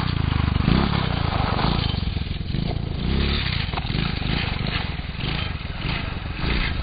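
110cc single-cylinder engine of a custom quarter-scale RC truck revving as the truck drives off, louder at first and then lower as it pulls away.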